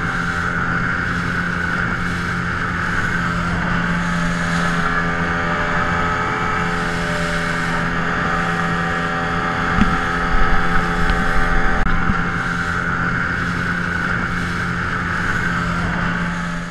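Small outboard motor pushing an inflatable dinghy along at a steady speed: one even engine drone that holds its pitch, with a short louder patch about ten seconds in.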